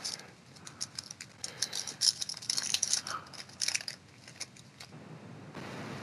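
Trading cards and a foil card-pack wrapper being handled: a run of small, sharp crinkles and crackles, then a brief rustling burst near the end as the pack is worked open.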